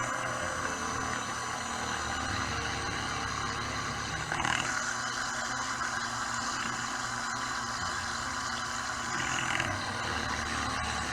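A 540-size 20-turn brushed electric motor running steadily at low throttle while partly submerged in water, a constant whir with a brief louder moment about four seconds in. It is being broken in, so that its brushes wear in to make better contact.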